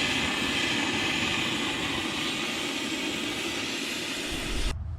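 Cutting torch flame hissing steadily as it heats a bent steel bumper for straightening; the hiss stops abruptly near the end.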